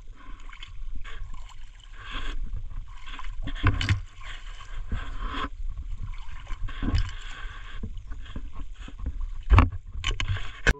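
Shallow pond water sloshing and swishing in uneven surges as someone wades through it, with two louder thumps, one about four seconds in and one near the end.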